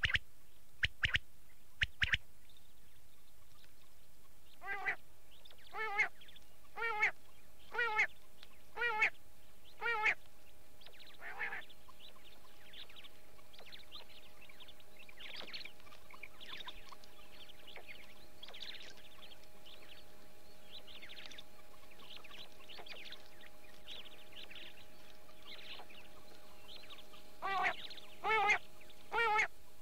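Quail calling: a few sharp short calls near the start, then a run of wavering calls about once a second, then a long stretch of softer, faster chattering. The once-a-second calls return near the end, over a faint steady hum.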